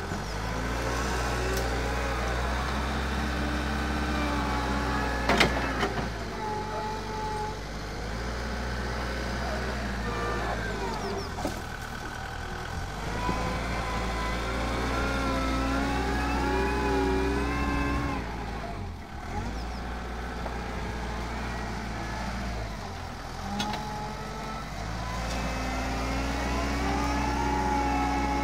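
Schaeff wheel loader's diesel engine running under load as it pushes and levels soil, its note rising and falling as the bucket works. A sharp knock about five seconds in.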